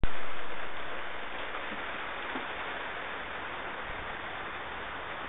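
Steady rain falling, an even hiss of rain on wet ground, loudest at the very start and settling within the first second or two, with a few faint knocks.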